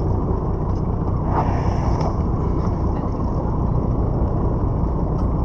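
Steady low rumble of a boat's engine running at sea, mixed with wind and water noise.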